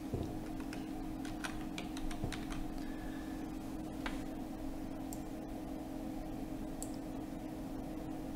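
Clicks of a computer mouse and keyboard keys as an object is copied and pasted: a quick cluster in the first couple of seconds, then a few single clicks, over a steady low hum.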